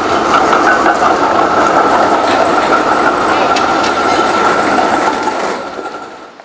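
A tram passing close by: loud rolling noise with a steady high-pitched whine and scattered clicks from the wheels on the rails, fading away near the end.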